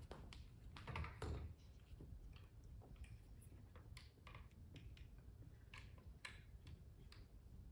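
Faint handling noise from an electric bass guitar being lifted off its stand and raised to be put on: scattered light clicks and taps, with a soft thump about a second in.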